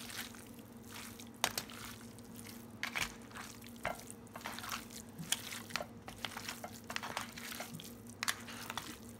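Wet squishing and smacking of a hand rubbing seasoning into raw cubed beef stew meat in a plastic bowl, in irregular short squelches, over a faint steady hum.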